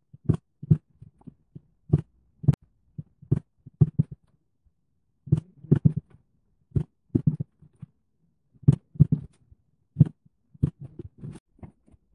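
Desk stapler pressed on a tabletop while paper triangles are fastened to a thread, mixed with paper handling: irregular low knocks and sharp clicks, some in quick pairs.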